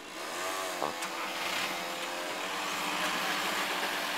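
Level crossing barriers lifting, with a steady motor whine from the barrier mechanism. Road traffic starts to move, with a short rise and fall of engine pitch in the first second as a motorcycle pulls away.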